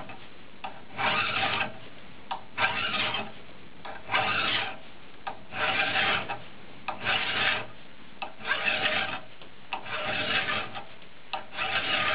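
A file draw-filing the rails of a chainsaw guide bar clamped in a vise: about eight rasping strokes, one roughly every one and a half seconds. The filing levels rails that have worn uneven.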